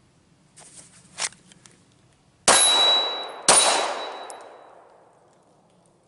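A few faint clicks and rustles of the pistol being drawn, then two loud pistol shots about a second apart, each with a long echoing tail in the woods. A high steady ring sounds through both shots.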